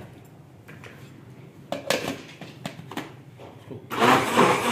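Hard plastic knocks and clicks as the lid is pressed onto an electric blender jar. About four seconds in, the blender motor starts with a loud steady whirr, blending a thick green garlic chutney paste.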